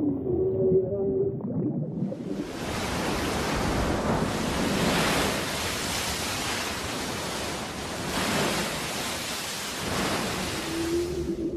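Bowhead whale calling with short pitched tones for about the first two seconds. Then a loud, steady rushing of sea water and spray, which swells about three times as a whale surfaces and spouts.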